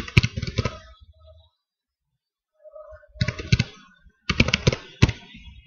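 Typing on a computer keyboard: a quick run of keystrokes, a pause of about two seconds, then two more runs of keystrokes.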